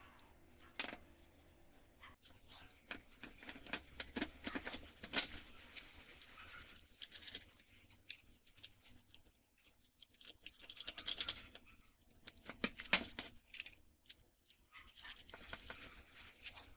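Steel bolts, nuts and rollers of a homemade sliding carriage clinking and scraping as they are handled and fitted together, with irregular small metal clicks and knocks on the tabletop.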